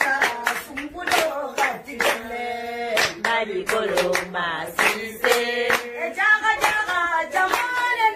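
Singing voice over a steady beat of sharp hand-struck percussion, about two to three strokes a second.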